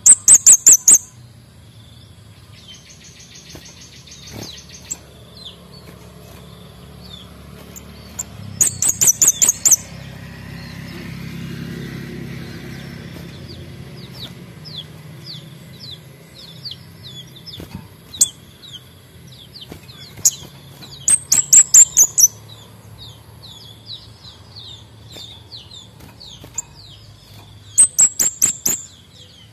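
Male kemade bunga api songbird singing: four loud bursts of rapid, very high-pitched ticking notes, with a short fast trill near the start and softer quick chirps in between.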